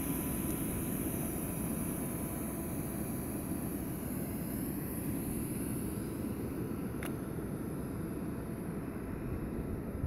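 A steady low rumble, with one faint click about seven seconds in.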